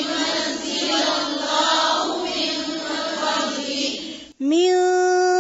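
Several voices chanting a Quranic phrase together, blurred and overlapping. About four seconds in they stop, and a single woman's voice begins a clear, melodic Quran recitation on a long held note.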